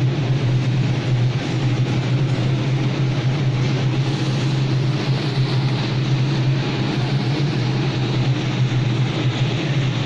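Steady low machine hum with an even hiss over it, unchanging throughout.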